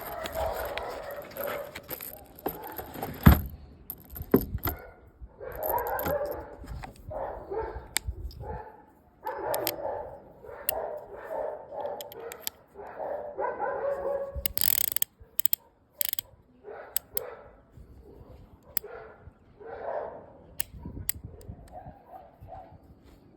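Sharp clicks of a Ruger Blackhawk .357 Magnum single-action revolver being worked, the hammer and cylinder ratcheting, with one loud click about three seconds in. A dog barks repeatedly throughout.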